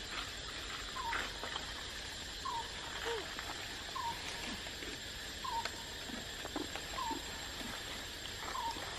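A short, falling animal call repeated at an even pace about every one and a half seconds, with a few fainter scattered calls, over a steady background hiss and a thin, high, steady whine.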